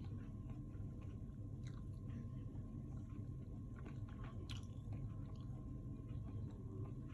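A person chewing soft food close to the microphone, with small wet smacks and clicks of the mouth, over a steady low hum.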